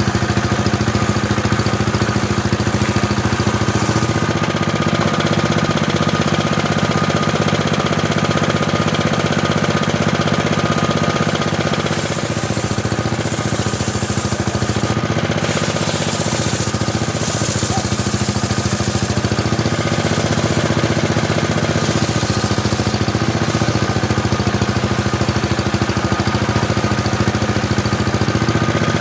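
Homemade circular table saw running steadily while ripping teak. From about a third of the way in to about two-thirds through, a harsher high-pitched sound comes and goes as the blade cuts.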